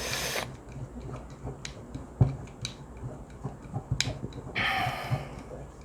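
Small clicks and knocks of hands handling a portable airbrush compressor kit, with two short bursts of hiss, one at the start and one near the end.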